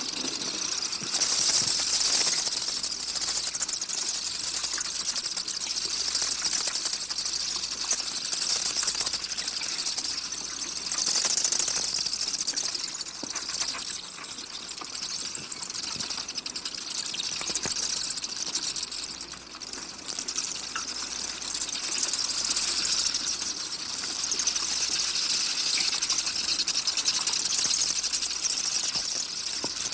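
Free-tailed bat calls: a dense, rapid, high-pitched clicking and chirping that swells and eases in loudness every few seconds.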